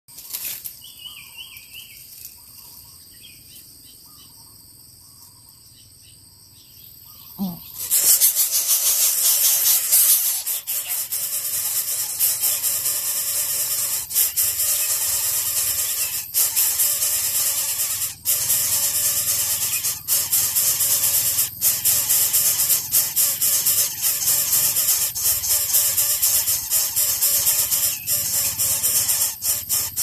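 Coucal nestlings begging at the nest: a loud, continuous hissing squeal that starts suddenly about eight seconds in and keeps going with brief breaks every second or two. Before it there are only a few faint bird chirps.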